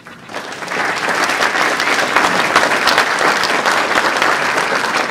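Audience applauding: a large seated crowd clapping, swelling within the first second and then holding steady and loud.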